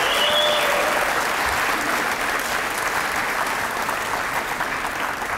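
Audience applauding steadily, a dense patter of many hands clapping that eases slightly near the end.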